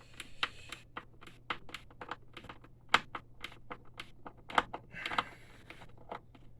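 Quick, irregular light clicks and taps of a screwdriver working out the screws that hold a printer's plastic top piece, with one louder knock about three seconds in and a short scrape near the end.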